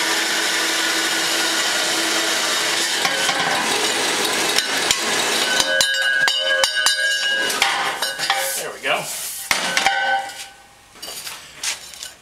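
Horizontal bandsaw, tilted upright, running and cutting around a thin-walled metal tube: a steady blade hiss with metallic ringing and rattling as the tube is turned into the blade. The cutting stops about eight seconds in, followed by scattered clinks of the metal tube being handled.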